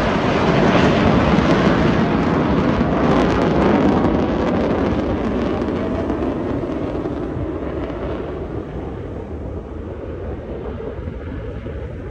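Loud, continuous rumbling jet noise from an F-35B Lightning II hovering in short-takeoff/vertical-landing mode, its engine and lift fan running together. The sound dulls and fades steadily over the second half.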